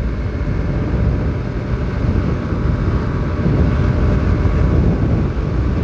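Aprilia SR 150 scooter's single-cylinder engine running at speed, close to 100 km/h, heard from the rider's seat. A steady, heavy rush of wind over the microphone covers most of it.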